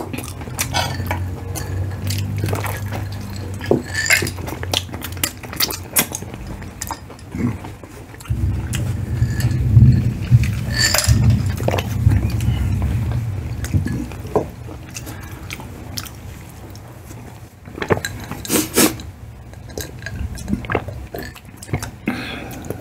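Close-miked eating: chewing and biting, with cutlery clinking and scraping on plates in many scattered sharp clicks. A low rumble runs through the first half, loudest about ten seconds in.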